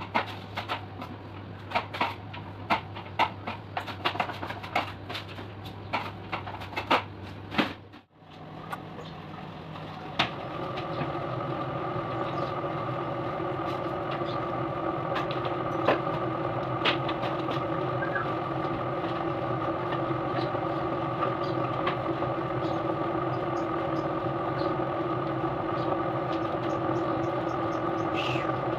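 Broom sweeping a tiled floor: a run of quick scrapes and clicks, about two a second. After a break about eight seconds in, a steady motor drone with several held tones takes over and runs on evenly.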